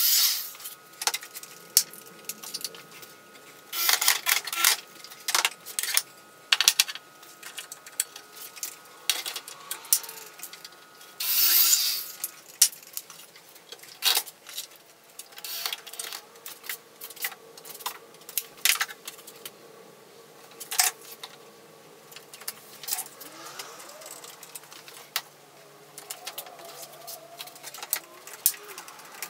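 Corded power drill run in a few short bursts into a wooden bench frame, with many clicks, knocks and rattles of tools and bar clamps being handled in between.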